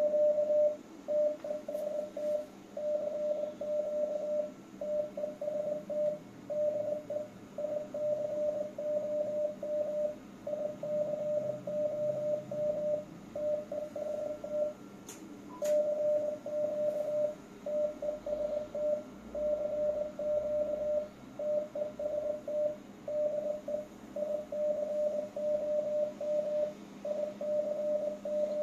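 Morse code sidetone from a ham radio transceiver: a single steady mid-pitched tone keyed on and off in short and long elements, with a pause of about a second and a half midway. The transceiver is driving a 1000 W HF linear amplifier at about 1150 W output into a matched antenna.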